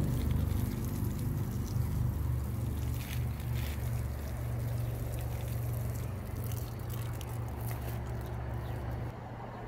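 Diluted urine sprinkling from a watering spout onto a rosemary plant and the mulched soil around it, a steady splashing pour. A low steady hum runs underneath and drops away about nine seconds in.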